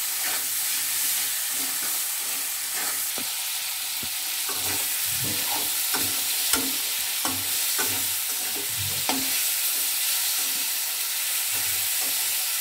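Onions, green chillies, capsicum and tomatoes sizzling in hot oil in a metal kadai, with a steady hiss, while a metal spatula scrapes and stirs them. The stirring strokes come thickest through the middle. The tomatoes are being fried until they soften.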